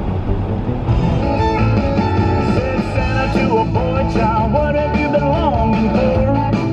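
Rock music with guitar, growing fuller about a second in, with a wavering melody line over it.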